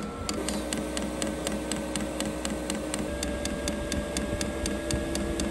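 HCALORY briefcase-style diesel air heater starting up: its dosing fuel pump ticks in an even rapid rhythm, about four ticks a second, over the steady hum and whine of the running blower. The pump is drawing diesel in as the heater warms up toward combustion.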